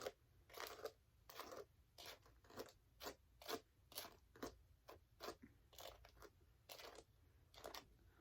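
Bratz doll's synthetic hair being brushed in short repeated strokes, about two a second, during restoration.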